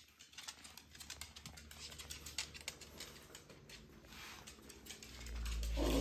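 Rapid light clicking and tapping of a small dog's claws on a wooden floor. Near the end a cat starts a loud, drawn-out meow.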